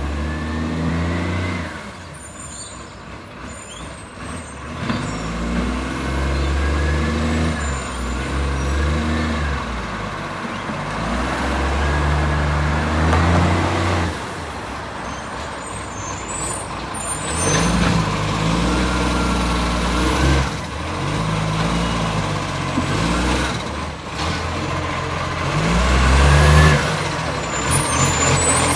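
Garbage truck's diesel engine with a leaking exhaust, revving up and dropping back again and again.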